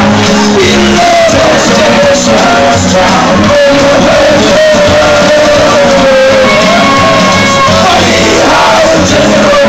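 Very loud country music with a man singing into a handheld microphone and the crowd shouting along.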